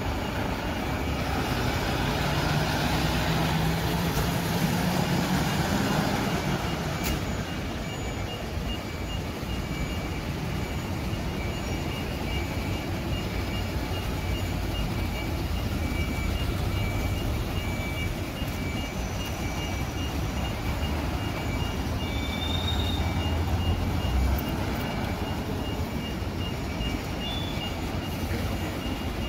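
A Mercedes-Benz fire truck's diesel engine pulls away, its sound dying down over the first few seconds. From about seven seconds in, a vehicle's reversing alarm beeps repeatedly over steady street traffic.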